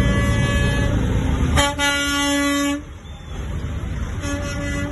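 Semi-truck air horn blowing a steady held note over low diesel engine rumble. The horn swells about one and a half seconds in, breaks off near three seconds, and sounds again about four seconds in.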